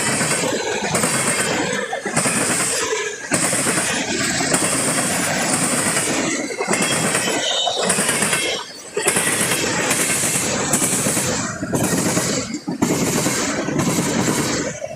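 Freight train passing close by: a loud, dense rumble and rattle, broken by several brief, sudden dips.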